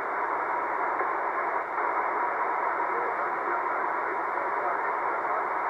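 Steady static hiss from a C. Crane Skywave SSB 2 shortwave receiver tuned to single sideband, between transmissions of a ham radio conversation. The hiss is cut off above and below the narrow voice band of the sideband filter.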